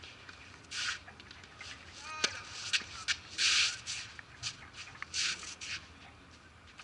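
Tennis play on a gritty court: one sharp racket-on-ball strike with a brief ring about two seconds in, among several short scuffing swishes of shoes sliding on the court surface and scattered small ticks.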